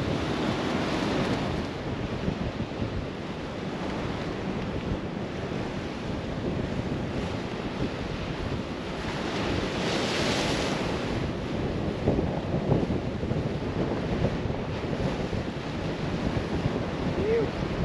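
Strong wind buffeting the microphone over surf washing against shore rocks, a steady rush that swells louder about ten seconds in.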